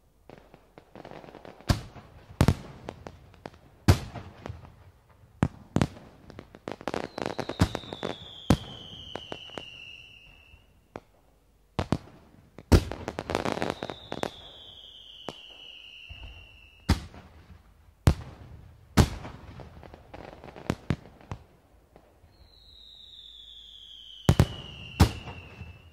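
Fireworks display: a run of sharp bangs from shells bursting, with crackling in between. Three times a long whistle slides down in pitch over two to three seconds, typical of whistling fireworks.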